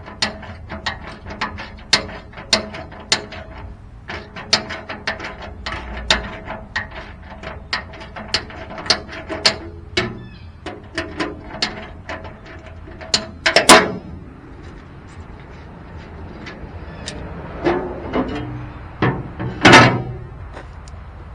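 Socket ratchet clicking in quick runs as the 15 mm bolts on the rotary cutter's gearbox inspection cover are turned out, followed later by a few louder metal clanks.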